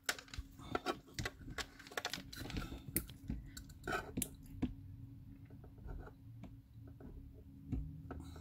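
Small clicks and taps of hard plastic being handled: a thin plastic pipette tapping and scraping inside a clear plastic vial, busy for the first few seconds and then sparser, over a faint steady hum.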